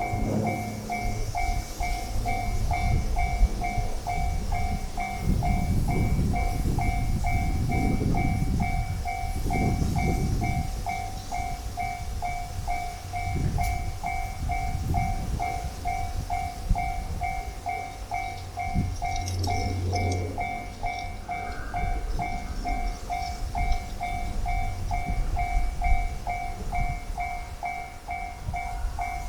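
Japanese railway crossing warning bell ringing steadily, a two-tone ding about twice a second, signalling that a train is approaching. A train rumbles past underneath it, loudest in the first half.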